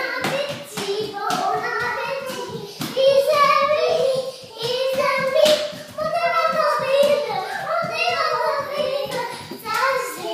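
Small children's high voices singing without clear words, the pitch bending up and down in phrases, over a rapid patter of slaps and thumps from their running feet on a laminate floor.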